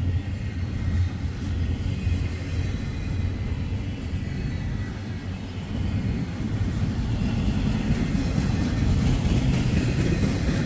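Freight train cars rolling past on the rails: a steady low rumble of steel wheels on track.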